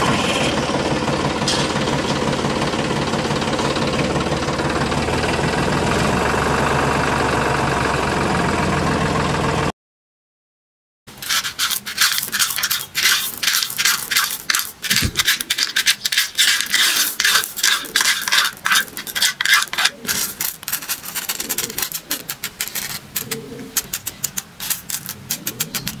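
A steady engine-like drone for about ten seconds. After a short silence, a miniature hand shovel scrapes and tips small white pebbles into a shallow trench in sand, with quick irregular clicks and rattles of stones.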